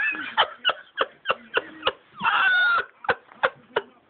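A person coughing and hacking in rapid short bursts, about three a second, with a long strained wheezing gasp about two seconds in: choking on a spoonful of dry ground cinnamon.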